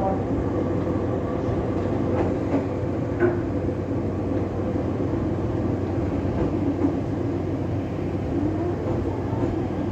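Cabin noise of a small electric train, heard from inside, as it brakes for an unscheduled stop or stands just stopped: a steady rumble and hum with a few faint squeals and clicks, easing slightly near the end.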